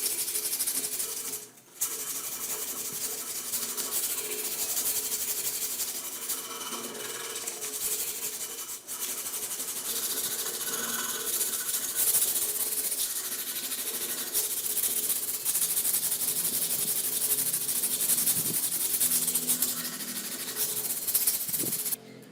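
Continuous abrasive rubbing, as of a tool being sanded or worked against an abrasive by hand, with short breaks about one and a half seconds in and again near nine seconds.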